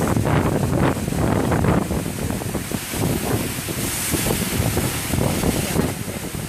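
A high-efficiency crate-washing machine running, its water jets spraying hard inside the washing tunnel, with the irregular knocking of plastic crates being pushed through and out past the rubber curtains.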